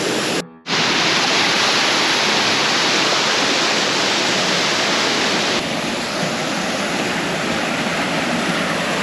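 Small waterfall pouring steadily, a dense, loud rush of falling water. It breaks off for a moment about half a second in and turns slightly softer a little past halfway.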